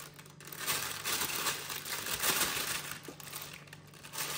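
Piping bag crinkling and rustling as it is handled and filled with a soft corn-and-bread stuffing.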